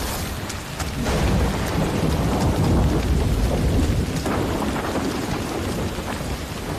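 Heavy rain falling with thunder rumbling low. The rumble swells sharply at the start, about a second in and again just after four seconds.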